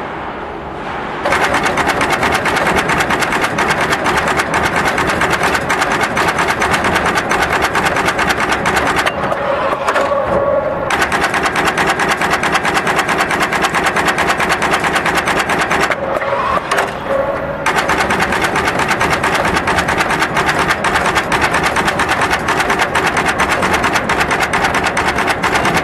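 Axial component insertion machine running at speed: a fast, steady mechanical clatter of its insertion head and component tape feed. The clatter breaks off twice for a second or two, about ten and sixteen seconds in, leaving a steadier lower hum.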